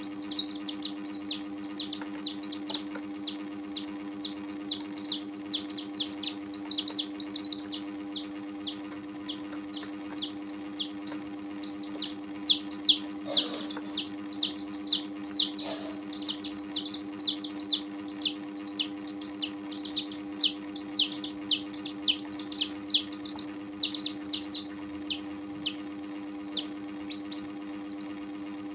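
Domestic chicks peeping: a run of short, falling peeps, a few a second, that stops shortly before the end, over a steady low hum.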